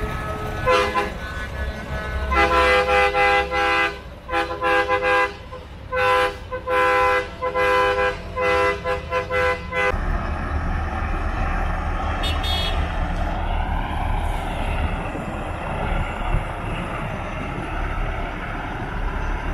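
Semi truck's air horn blown in a rhythmic series of long and short blasts, then the steady low rumble of a diesel truck engine running.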